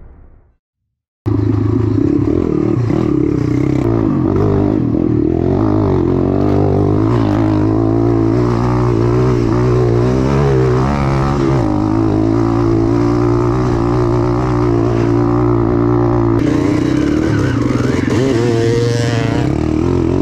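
The four-stroke 140 cc single of an MRF 140RC pit bike runs under riding load, its pitch wavering up and down with the throttle. It starts about a second in, after a brief silence.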